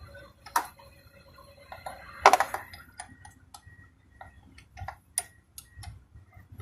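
Metal hand tools being handled: two sharp clanks, then a run of light irregular clicks and ticks.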